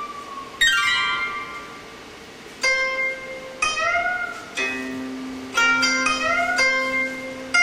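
Solo guitar playing slow single plucked notes, each left to ring out, a few of them bent up and back down in pitch, with a low note sustained beneath from about halfway.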